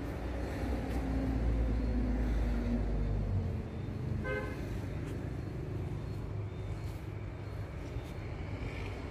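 Road traffic. A low vehicle rumble is loudest for the first three seconds or so and then drops away, and a short horn toot comes about four seconds in.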